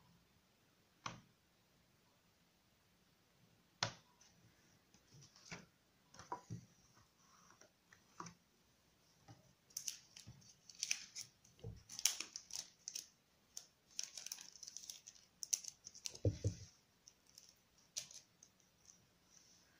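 Quiet handling of a steelbook case and its plastic tray: scattered small clicks, then a busier stretch of plastic and paper rustling and clicking as a printed card is pressed into the case's clear holder, with a dull knock about three-quarters of the way through.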